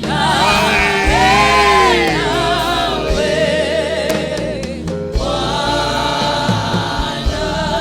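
Gospel worship singing with heavy vibrato over a steady musical accompaniment, with a brief break in the voice about two-thirds of the way through.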